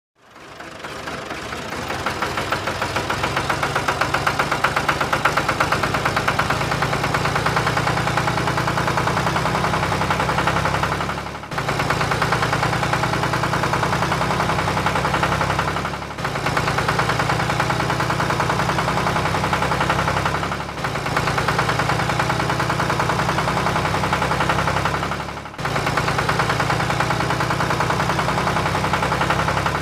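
Engine idling with a rapid knocking beat, a dubbed sound effect for the toy trucks. It fades in over the first couple of seconds and dips briefly and picks up again every four to five seconds, as a loop restarting.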